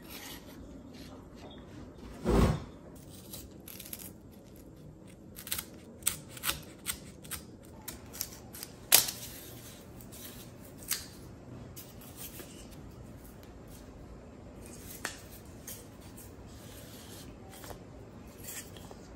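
Retractable utility knife cutting through corrugated cardboard on a cutting mat: a run of short, sharp cutting and snapping sounds between about five and eleven seconds in, with a single dull thump about two seconds in. Cardboard pieces are handled and slid on the mat near the end.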